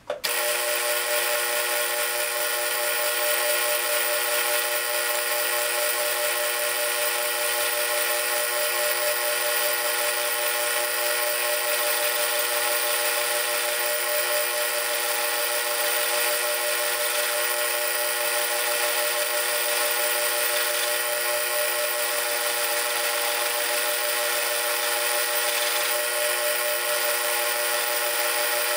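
South Bend Model A lathe running while a boring tool cuts a counterbore into a large nut: a steady, unbroken whine of several high ringing tones over a hiss. It starts suddenly.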